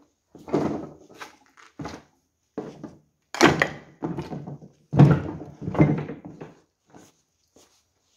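Footsteps thudding up a staircase, an irregular run of heavy treads with a short echo after each. The two loudest come about three and five seconds in, and the steps thin out near the end.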